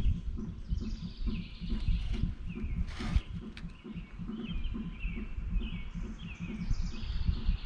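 Songbirds chirping over and over in short falling notes, over a run of low, irregular thumps. A single sharp click about three seconds in.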